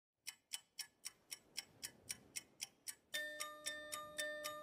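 Background music opening with a ticking beat, about four ticks a second; held chord tones come in about three seconds in, under the ticks.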